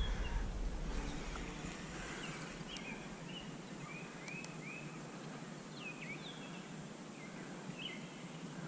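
Birds chirping in short, repeated calls over a steady outdoor hiss; a low rumble at the start dies away within about two seconds.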